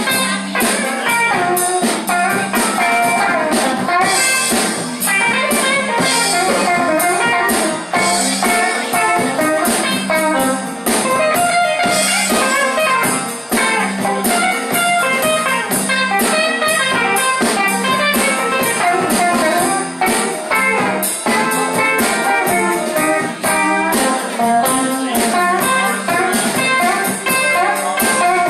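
Blues band playing: guitar carrying the lead over bass and drums, with a steady beat.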